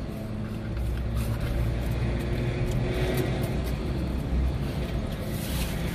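Steady low rumble of a parked truck idling, heard inside the cab, with a few faint clicks from food and packaging being handled.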